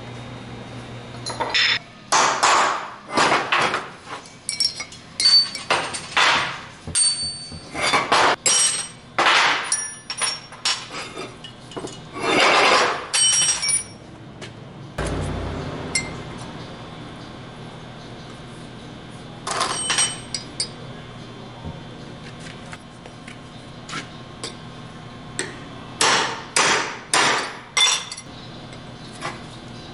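Hammer blows on steel, an irregular series of sharp metallic strikes, several with a short ring, as bearing races are driven into a new disc brake rotor's hub. The strikes pause about halfway and come again in quick groups near the end.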